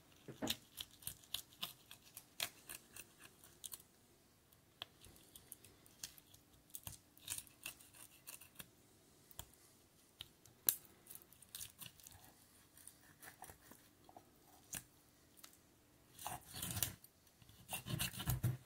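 Heavy kitchen knife slicing a sea bass fillet away from the rib bones and spine: faint, irregular clicks and scrapes as the blade passes over the bones, with one sharper click about halfway through. A louder rustle near the end.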